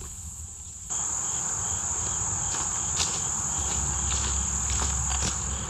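Steady high-pitched drone of a late-summer insect chorus, starting about a second in, with a few soft footsteps on a leaf-littered trail.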